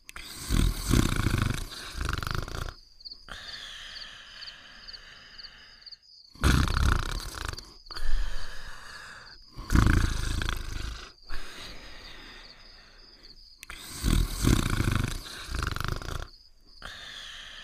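Cartoon dog snoring sound effect: loud, rough snores every few seconds, with quieter breathing and a thin, high steady tone between them.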